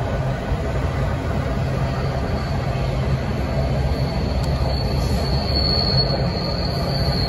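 Freight train cars rolling past with a steady low rumble; about four seconds in, a thin high wheel squeal comes in and holds.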